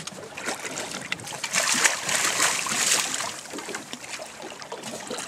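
A large fish splashing and thrashing at the water's surface beside a boat as it is grabbed by hand and lifted out, loudest from about a second and a half to three seconds in.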